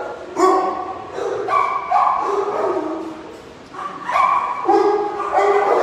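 Several shelter dogs barking together in their kennels, overlapping calls with a brief lull about three and a half seconds in. They are worked up by other dogs being taken out for walks.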